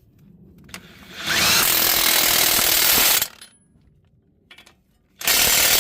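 Impact wrench hammering a 22 mm bolt tight: one run of about two seconds starting a little over a second in, then a short second burst near the end.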